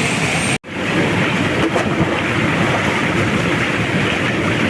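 Waterfall pouring, a loud, steady rush of falling water that cuts out for an instant about half a second in.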